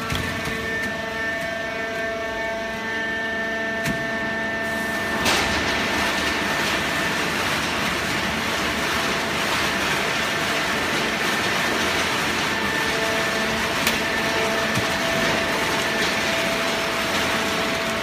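Horizontal hydraulic cardboard baler running: a steady machine hum with several held whining tones. About five seconds in, a louder, even rushing noise joins and keeps going.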